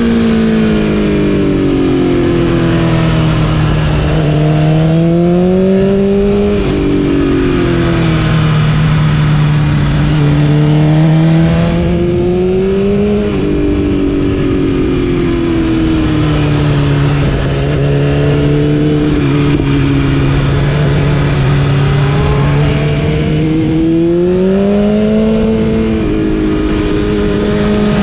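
BMW S1000RR inline-four with an Akrapovič exhaust, running under load with the engine pitch climbing on acceleration and falling back as the throttle eases, rising sharply about 5, 12 and 24 seconds in and holding steadier in between.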